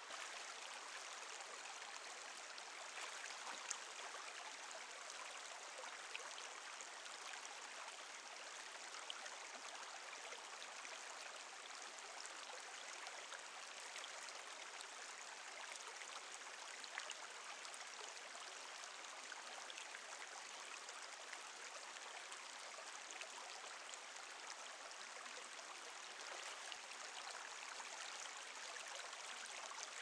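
Stream running: a steady, even rush of flowing water, with a few faint ticks.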